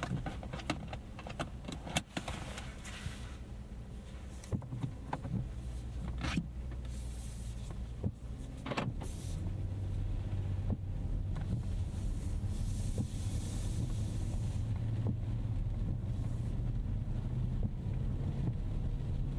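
Clicks and knocks inside the car's cabin, then, about nine seconds in, the Rolls-Royce Ghost Series II's 6.75-litre twin-turbo V12 comes in and settles into a steady, low idle.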